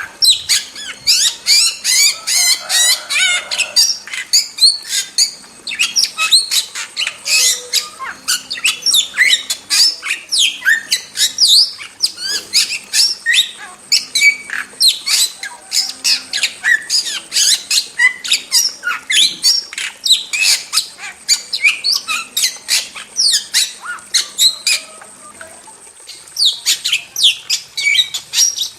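Starling (jalak) calling in a rapid, nonstop chatter of short whistles, chirps and harsh squawks, with a short lull about 25 seconds in before it resumes.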